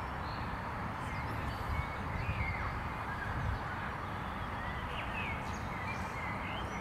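Open-air background: a steady low rumble and hiss, with short bird chirps scattered through it.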